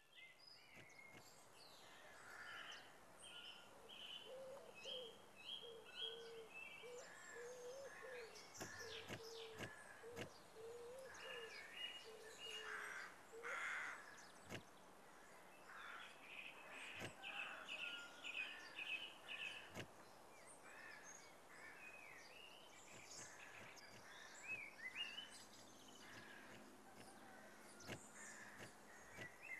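Faint bird chorus: several birds calling and chirping, with quick runs of repeated high notes and a lower wavering call, and a few short knocks.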